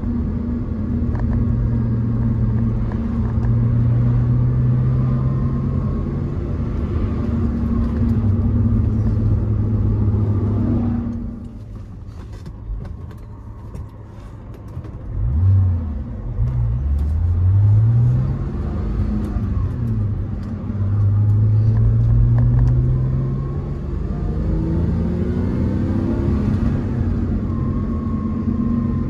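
Porsche 986 Boxster's flat-six engine heard from inside the cabin while driving: a steady cruise, easing off about eleven seconds in, then accelerating with the engine note climbing in pitch in steps, and settling back into a steady cruise near the end.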